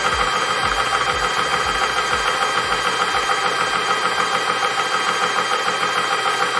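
12V portable PCP high-pressure air compressor running steadily as it fills a small 0.25 L air tank.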